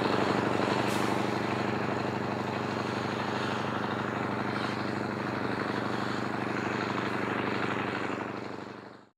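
Scania V8 diesel engine from a Scania 143 truck, fitted in a Steiger Cougar tractor, running steadily under load while pulling a nine-furrow plough through the soil. It grows a little fainter as the tractor moves away and fades out near the end.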